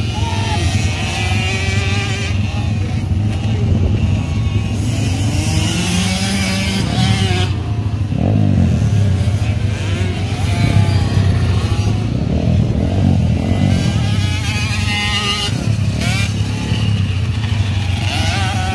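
Several small kids' motocross bikes riding round a dirt track, their engines revving up and down with overlapping rising and falling notes.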